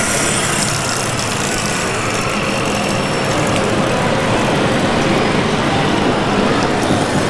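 Steady engine-like running of a large-scale radio-controlled Volvo A40D articulated dump truck as it drives along, over the constant hubbub of a large exhibition hall.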